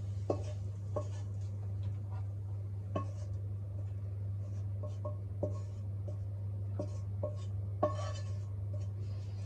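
Wooden spatula scraping and tapping in a non-stick frying pan as fried mushrooms are pushed out: a scatter of light clicks and scrapes, the sharpest near the end, over a steady low hum.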